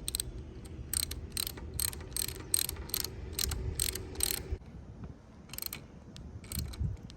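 Hand ratchet clicking in quick strokes, about two to three a second, as the handlebar riser cap bolts are run down, then a few single clicks after a pause about four and a half seconds in.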